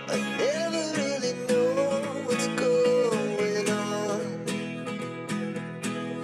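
Background music: acoustic guitar with a wavering lead melody for the first four seconds or so, then plucked guitar notes.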